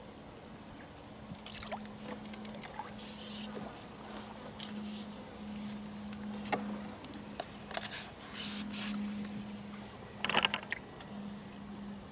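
A carbon fishing pole being handled on its rest: scattered scrapes and clicks, loudest about eight and ten seconds in, over a faint steady low hum.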